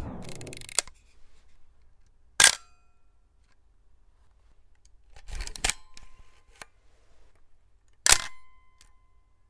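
Camera shutter clicks: a sharp click about two and a half seconds in, a short cluster of clicks around the middle, and another sharp click near the end, with the tail of background music fading out at the start.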